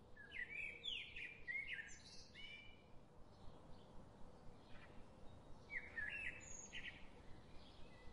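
Faint birdsong: quick rising and falling chirps in two spells, one in the first few seconds and another about six seconds in, over a steady low hiss.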